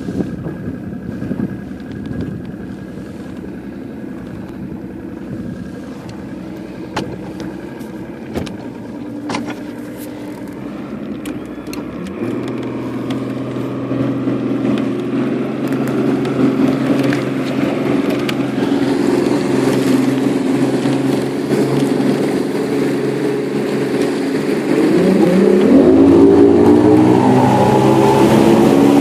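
Motorboat engine running steadily at low speed, stepping up in speed about twelve seconds in, then revving up sharply as the throttle is opened near the end. The engine is pushing a PowerTech three-blade propeller of 24-inch pitch.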